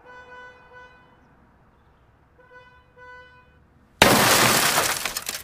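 A car horn sounds twice, each blast about a second long, then about four seconds in comes a sudden, loud crash: a burst of noise with crackling that lasts over a second.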